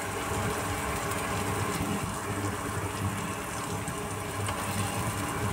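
Steady low mechanical hum with a faint hiss over it, running evenly without a break.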